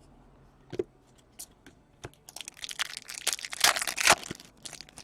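Plastic foil wrapper of a hockey card pack crinkling and tearing as it is opened and crumpled. A single sharp crackle comes about a second in, then a dense run of crinkling in the middle that thins out near the end.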